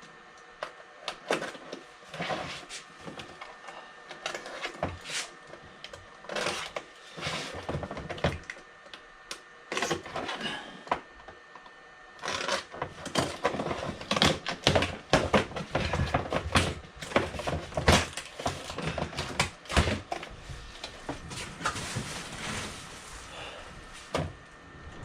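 Packing tape on a cardboard box being nicked with a folding knife and the box handled: irregular scrapes, crinkles and knocks, busier from about halfway.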